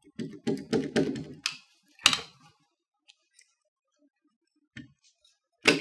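Metal parts of a Diamondback DBX pistol clicking and knocking as its barrel assembly is rocked loose in the upper receiver. A quick run of clicks in the first second and a half, then single sharp clicks about two seconds in, near five seconds, and at the very end.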